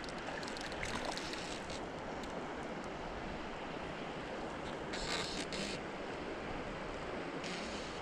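Steady rushing noise of flowing creek water, with wind on the microphone; a short, brighter hissing burst about five seconds in.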